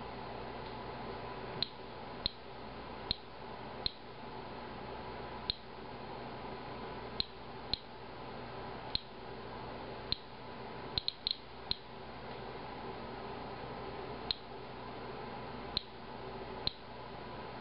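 Inspector Alert handheld Geiger counter clicking at random, roughly once a second, with a quick cluster of clicks midway, over a steady background hiss. Each click is one detected count during a radiation test of green tea, and the tester takes the count rate to be well above the room's background.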